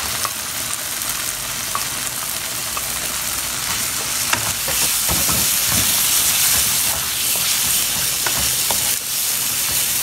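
Diced raw chicken sizzling in a hot tomato-and-onion base in a non-stick frying pan, just added and being stirred in, with a wooden spatula scraping and knocking against the pan. The sizzle gets louder about halfway through.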